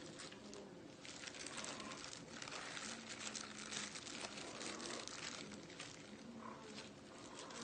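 Clear plastic disposable gloves crinkling and rustling as hands toss marinated chicken pieces in a bowl of arrowroot powder. A steady run of small crackles and rustles.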